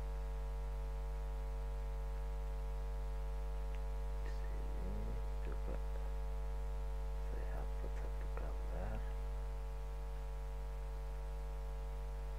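Steady electrical mains hum, a low drone near 50 Hz with a ladder of steady overtones.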